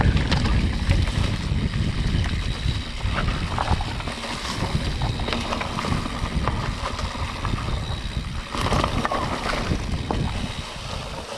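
Mountain bike rolling over a rough dirt singletrack: wind rumbling on the handlebar-mounted camera's microphone, with the bike's rattles and clicks over bumps. A brief rustle of vegetation brushes past about nine seconds in.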